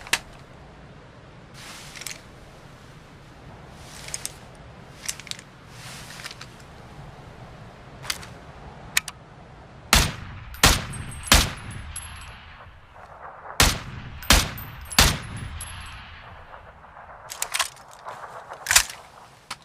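M164A1 assault rifle sound effect: a series of sharp metallic clicks, then single gunshots in two quick groups of three, each with an echoing tail, and a few more shots near the end.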